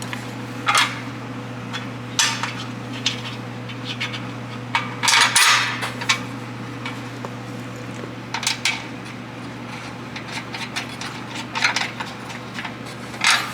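Scattered metallic clinks and clatter of steel bolts, nuts and hand tools being handled while fastening a bumper bracket, with a longer clattery stretch about five seconds in, over a steady low hum.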